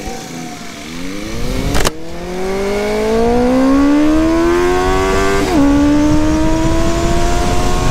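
Motorcycle engine accelerating hard, its pitch climbing steadily in each gear. It upshifts about two seconds in with a sharp crack, and upshifts again about five and a half seconds in.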